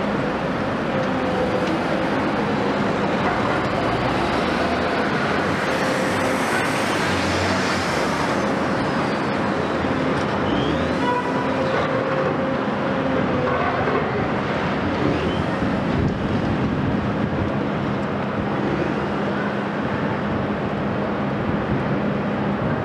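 Volvo EC 700 B high-reach demolition excavator working, its Volvo D16E diesel engine and hydraulics running steadily under load, with a steady hum over a continuous noisy drone.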